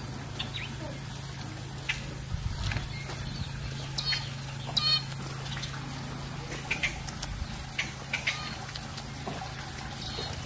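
Open-air cattle-pen ambience: a steady low hum with a scattering of short, high chirps and clicks.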